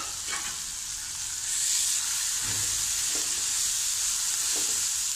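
Chopped onion, green chilli and ginger frying in oil in a kadai: a steady sizzle that grows louder about a second and a half in. A few light spatula knocks come through as the mixture is stirred.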